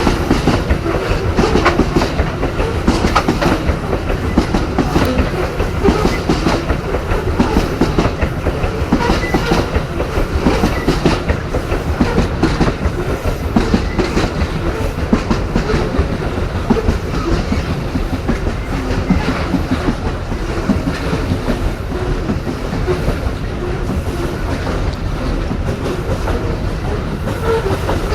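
Wagons of a long Babaranjang coal train rolling past, steel wheels clacking over the rail joints with a steady rumble.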